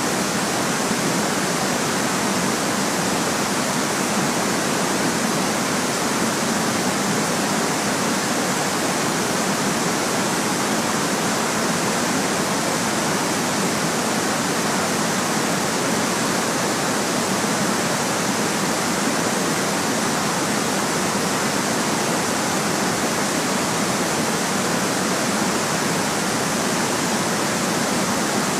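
Steady white noise: an even, unbroken hiss that never changes in level.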